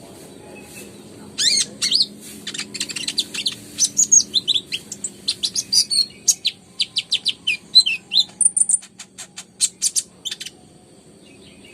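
Kolibri ninja sunbird singing vigorously: rapid volleys of thin, sharp, high-pitched chirps and short trills, starting about a second and a half in and stopping about a second before the end, over a faint steady low hum.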